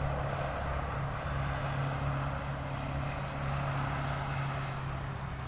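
Steady low motor hum, like an engine running at an even speed, with a light hiss over it.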